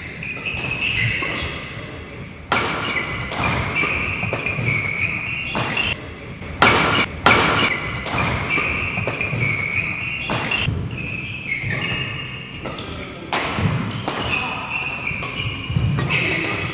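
Badminton doubles rally: rackets repeatedly strike the shuttlecock in sharp cracks, with two hard smash hits the loudest, about six and a half and seven seconds in. Shoes squeak high on the court mat between the hits.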